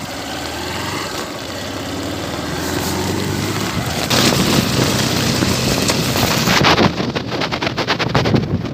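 Motorcycle engine running as the bike moves off and gathers speed, growing louder. From about two-thirds of the way through, wind buffets the microphone in rapid gusts.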